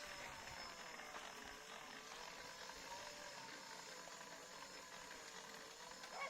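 1000 W e-bike motor on a homemade electric tractor running with a faint whine whose pitch wavers slowly up and down as its speed changes. A short sharp sound cuts in near the end.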